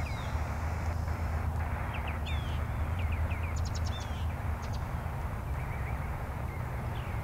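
Shortwave static hissing from a Tecsun PL-660 portable receiver's speaker as it is tuned across the upper bands, with no station coming through. Birds chirp briefly several times over the hiss.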